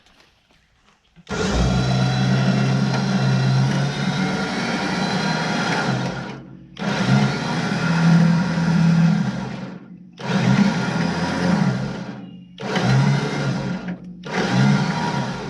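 Electric winch motor hauling a cable to drag a heavy log up onto a sawmill bed. It runs in bursts: one long pull of about five seconds starting just over a second in, then four shorter pulls, each stopping sharply.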